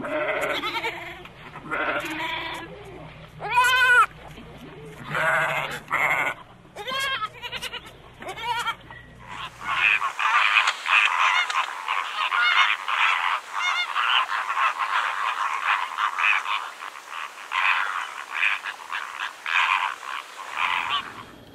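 Goats bleating, about six separate calls, some rising and falling in pitch. Then, from about ten seconds in, a flock of greater flamingos honking and chattering without a break until just before the end.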